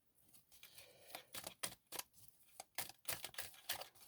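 Tarot cards being shuffled and handled: a run of irregular sharp clicks and snaps, several a second, busiest in the second half.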